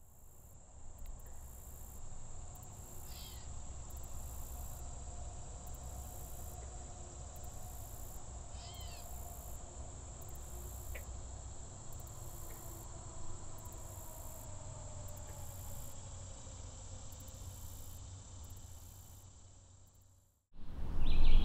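Summer swamp ambience: a steady, high insect chorus with a shrill layer pulsing on and off about once a second, over a low rumble. A couple of brief high chirps sound early on, and the sound fades out near the end.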